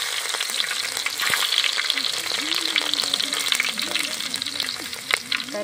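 Whole spices (cinnamon, fennel, cloves) and green chillies sizzling and crackling steadily in hot oil in a pot over a wood fire.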